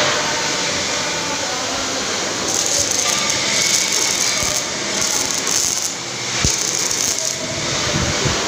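Steady mechanical background noise in a large workshop, with a few clinks and knocks, the sharpest about six and a half seconds in.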